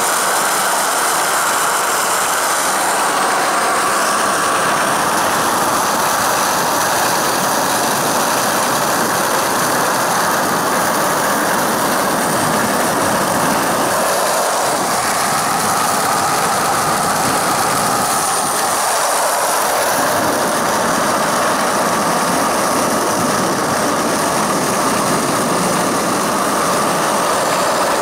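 Steel ball bearings serving as the four wheels of a homemade wooden cart, rolling fast down an asphalt road: a loud, steady rolling rattle.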